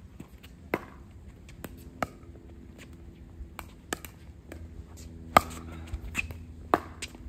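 Pickleball paddles striking a plastic pickleball during a serve and rally: a series of sharp pops about a second or more apart, the hardest hits in the second half.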